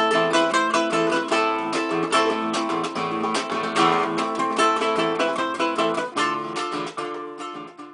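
Background music of quickly plucked and strummed string notes, fading and stopping near the end.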